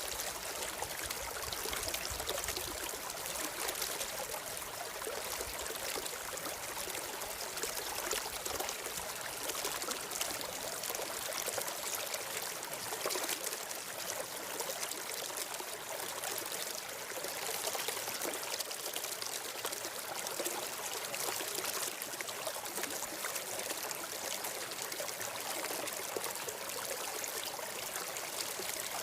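Stream water flowing and trickling steadily over stones, an even rushing babble with no pauses.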